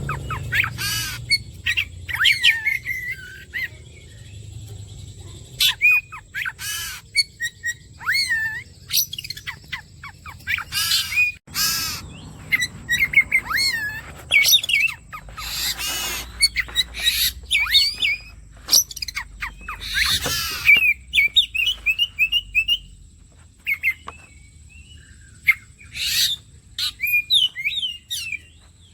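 Oriental magpie-robin (kacer) singing a varied song of loud sliding whistles and sharp chirps, broken by short pauses, with a fast stuttering trill about two thirds of the way through.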